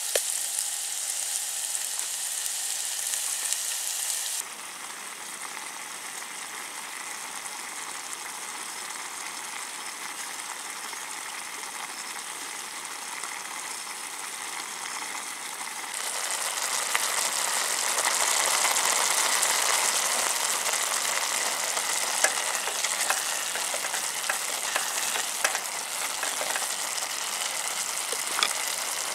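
Potatoes and vermicelli sizzling in a pot on a portable gas canister stove: a steady frying hiss. It drops quieter about four seconds in and comes back louder just past halfway, with small clicks of stirring.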